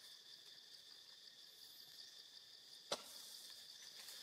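Faint, steady high-pitched drone of insects, with a single sharp click about three seconds in.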